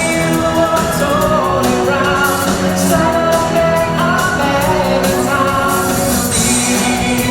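Stage-musical song: a sung vocal line over a full pop-style backing track with a steady beat.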